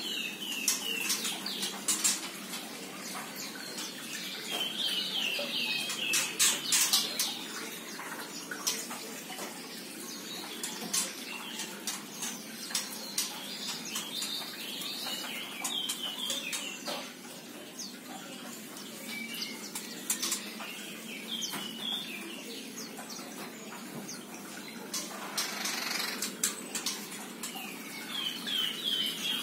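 Birds calling in quick runs of short chirps, each run lasting about a second and coming back every six to eight seconds, with scattered sharp clicks between them.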